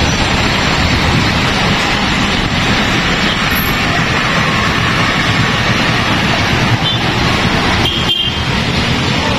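Street traffic: motorcycles and cars passing on the road below, a steady rush of engine and tyre noise.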